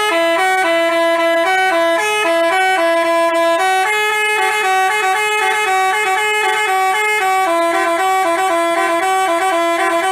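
Basuri telolet bus horn playing a quick, bouncing melody of short notes without a break.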